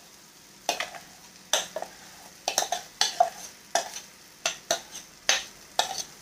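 Steel spoon knocking and scraping against the rim of a steel pot as thick boiled, mashed vegetables are scraped out into a frying pan: a quick series of sharp clinks at uneven intervals, one or two a second.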